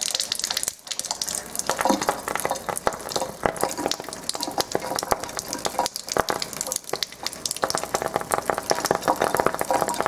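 Rapid, irregular crackling and popping as a long-reach lighter's flame is held in a thin stream of 9.5 pH Kangen ionized water, over the hiss of the water running into the sink. The demonstrator takes the pops for dissolved hydrogen in the water igniting.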